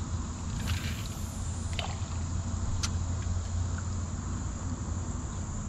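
Open-air river ambience from a canoe: a steady low rumble, a steady high insect drone, and a few faint clicks.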